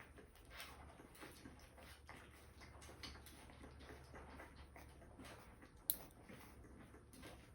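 Faint small clicks and handling sounds, with one sharp snip about six seconds in: a nail clipper cutting a three-week-old French bulldog puppy's claw.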